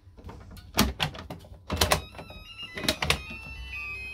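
Hard plastic clunks, about five, as Makita 18V battery packs are handled on their chargers, over a low steady hum. In the second half several short, high electronic tones start and stop, overlapping.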